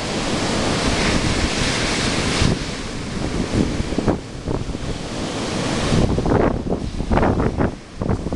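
Rough surf breaking and washing up a sandy beach, with strong wind buffeting the microphone in irregular gusts.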